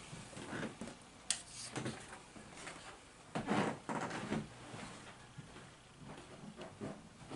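Faint handling noises: a sharp click about a second in, then short rustles and light knocks.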